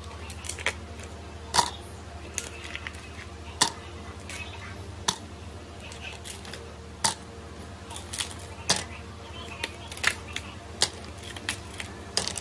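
Ice cubes dropped one by one into a clear cup, making a dozen or so sharp clinks at irregular intervals as they hit the cup, the spoon inside it and each other. A steady low hum runs underneath.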